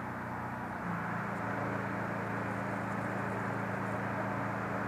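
Steady low mechanical hum of an engine or motor running, with an even hiss over it.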